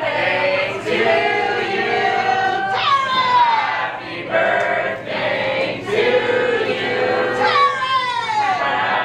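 Several voices singing a melody together.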